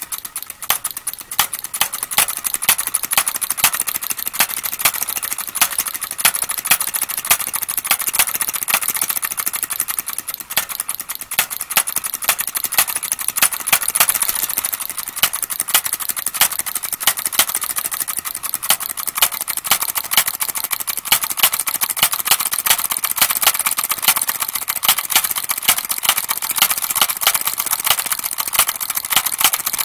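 Homemade Lenoir engine with a wooden cylinder running steadily. It gives a fast, even stream of sharp pops and clatter from its spark-fired strokes.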